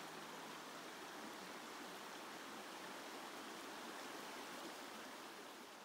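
A flowing creek: a steady rush of water, fading out near the end.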